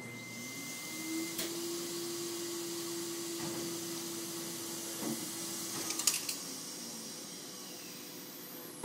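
Vacuum suction pick-up arm of a robotic ice-cream vending machine: a steady suction hiss while the suction cup grips an ice cream bar, a motor hum that rises in at the start and dies away as the arm lifts and carries the bar, and sharp clicks about a second and a half in and again around six seconds. It ends with a click and a high falling whine.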